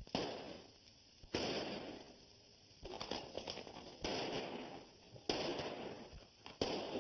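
Gunshots on an old 1930s film soundtrack: about six shots roughly a second apart, each with a long fading tail.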